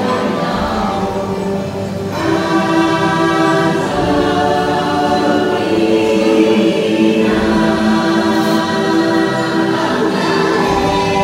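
Choral music: a choir singing long held chords that shift every couple of seconds, played loud as an attraction's soundtrack.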